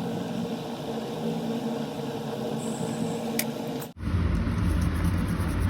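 Steady low mechanical hum with a few faint level tones, with background noise cutting off abruptly about four seconds in and a deeper steady hum taking over.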